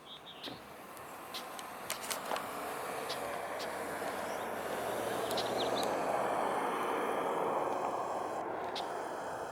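A road vehicle passing by: the noise swells over several seconds, peaks, then fades away.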